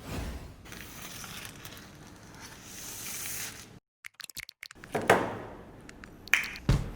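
Packaging being handled: a rustling, crinkling sound for nearly four seconds, then a series of sharp clicks and a louder knock about five seconds in.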